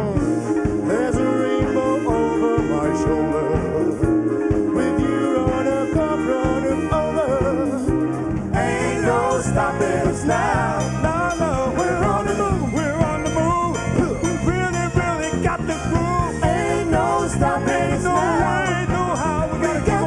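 A vocal group singing with a live band of drums, keyboard and brass. The music jumps abruptly to a different song about eight and a half seconds in.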